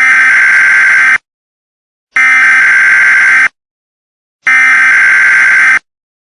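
Emergency Alert System header data bursts: three harsh, buzzing bursts, each a little over a second long and about a second apart. This digital header code opens an emergency alert broadcast.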